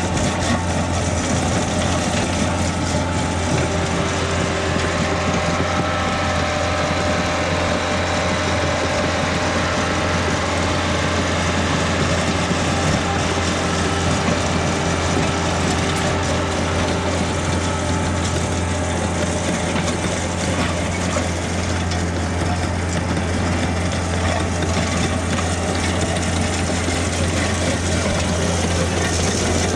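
Heavy equipment's engine running steadily at a constant speed, with a strong low hum.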